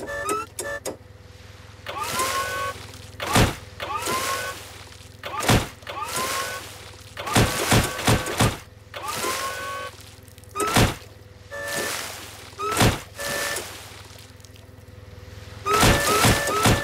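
A forklift repeatedly rams its forks into a beached whale's carcass: the lift motor whines up again and again, heavy thuds and cracking breaks land between the whines, and short reversing beeps sound at times over a steady motor hum. The impacts come thick near the end as the carcass tears open.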